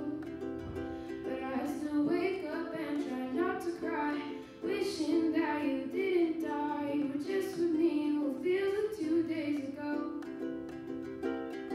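A ukulele strummed steadily in chords, with a young woman singing over it.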